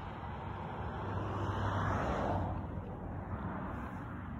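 A motor vehicle passing, its noise swelling about a second in and fading away by about three seconds, over steady outdoor background noise.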